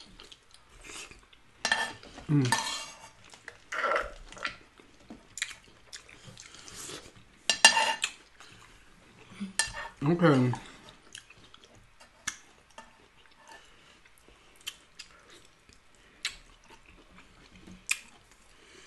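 Spoons scraping and clicking against ceramic plates in many short, separate strokes, with chewing and mouth sounds between them.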